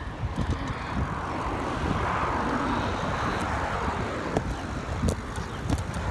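A vehicle passing by: a rushing sound that swells for a couple of seconds and then fades, over a steady low rumble of wind and handling noise on a phone microphone.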